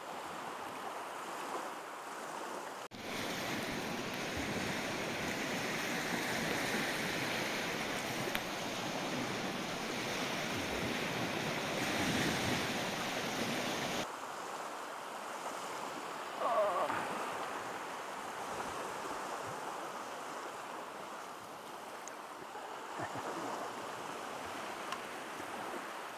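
Small Baltic Sea waves breaking and washing up a sandy beach: a steady rushing wash of surf that changes abruptly twice.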